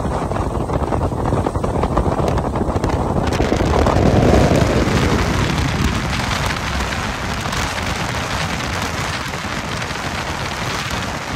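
Heavy wind buffeting on the microphone over the rush of water and hull noise from a bass boat running at high speed. A few seconds in, a bright hissing rush of water and spray comes up, loudest about four seconds in, then carries on steadily.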